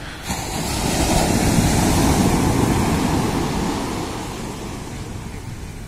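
Sea waves breaking on a sandy shore: the surf swells up sharply just after the start, is loudest for a couple of seconds, then fades as the wash runs out.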